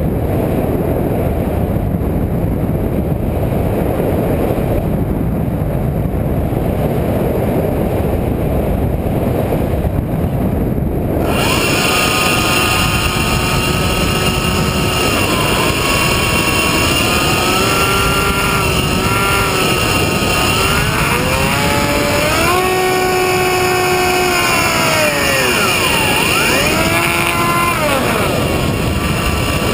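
Steady rush of wind over an RC airplane's onboard camera in flight. About eleven seconds in, the plane's motor and propeller start up with a whine that rises and falls in pitch several times as the motor speed changes.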